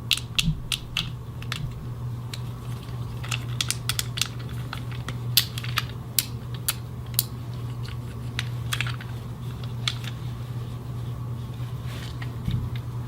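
Fidget cube being fidgeted: irregular sharp plastic clicks from its buttons and switch, coming thick and fast for the first several seconds and sparser later, over a low steady hum.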